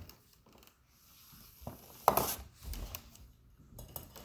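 A dog's food bowl clattering and knocking on a hard floor as the dog handles it, with one sharp clack about two seconds in.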